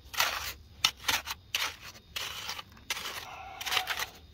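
Hand clam rake scraping and crunching through wet, gravelly mud and shell grit in a series of short strokes, digging out a clam hole to turn up manila clams.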